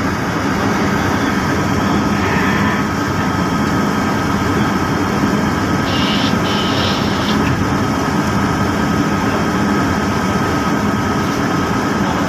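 Steady engine and machinery rumble of a pilot boat holding alongside a ship's hull, with a thin, steady high whine above it.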